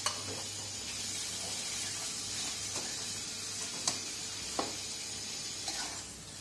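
Corned beef, sausage and garlic frying in margarine in a wok, sizzling steadily, with a spatula scraping and clacking against the pan a few times.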